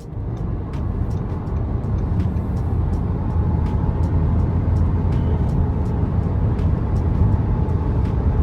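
Car driving, heard from inside: steady low road and engine rumble that grows louder over the first few seconds as the car gets under way, then holds.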